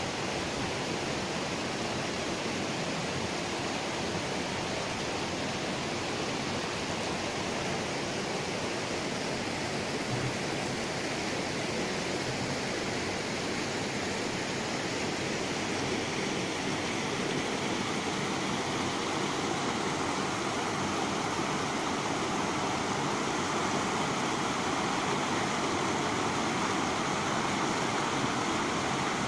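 Shallow river water rushing steadily over a small weir and rocky rapids. It grows a little louder near the end.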